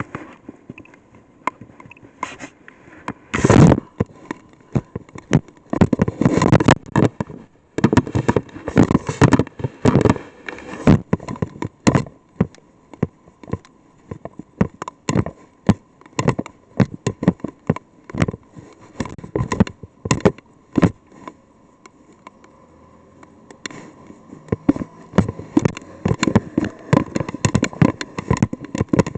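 Raindrops striking a weather probe close to its microphone: irregular sharp taps and clicks, some in quick clusters, sparser for a stretch in the middle.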